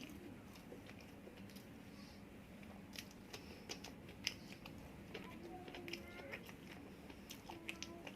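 Close-up chewing and wet mouth sounds of a person eating, with irregular soft clicks and smacks.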